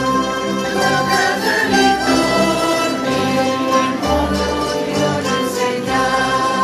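Mandolin orchestra of mandolins, mandolas, mandocellos, guitars and double basses playing a song while the audience sings along in unison.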